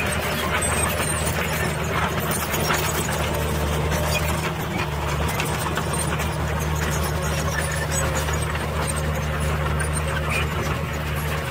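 Diesel engine of a small dump truck running steadily with a low hum while its hydraulic hoist raises the tipper bed to dump a load of soil.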